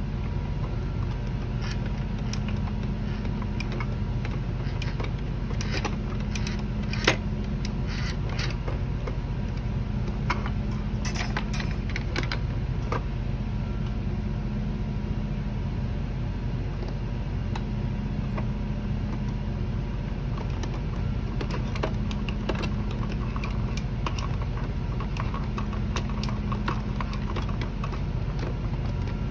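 Scattered small clicks, taps and rattles of 3D-printed tank tread links being worked onto the sprockets and wheels of a toy R/C tank by hand, with one sharp click about seven seconds in. A steady low hum runs underneath.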